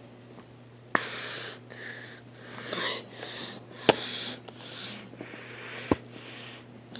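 Plastic blister packaging being handled and cut open with a knife: rustling and scraping, with three sharp clicks.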